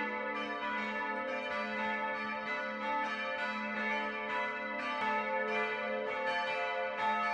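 Church bells ringing a peal, several bells struck in turn about two or three times a second, their tones ringing on and overlapping.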